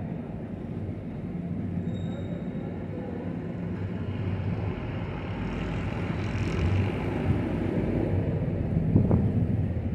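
A motorbike engine running with a steady low rumble. It grows louder in the last few seconds, and there is a short knock near the end.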